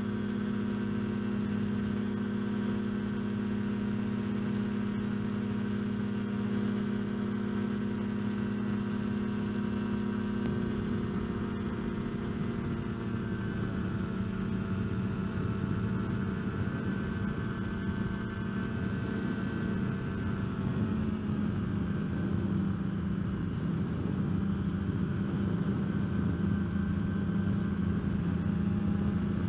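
Kolb Firefly ultralight's engine and propeller droning steadily in cruise flight, heard from the open cockpit. The engine pitch eases down slightly about eleven seconds in, and wind rush over the microphone grows in the second half.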